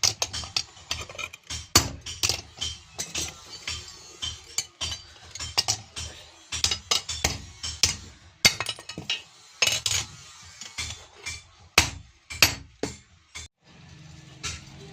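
Hammer blows on iron at the anvil while a katari blade is forged: sharp, ringing strikes at an uneven pace of two to three a second. They stop near the end.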